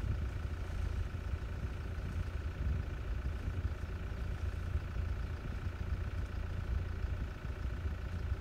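Vehicle engine idling: a steady low rumble.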